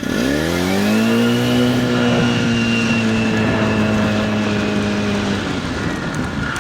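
Small gasoline engine of a golf cart speeding up as the cart pulls away, rising in pitch over the first second. It then runs at a steady speed and eases off about five seconds in, with a thin high whine riding over the engine note.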